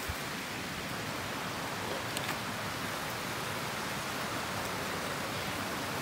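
Steady, even hiss of a small forest stream trickling over rocks.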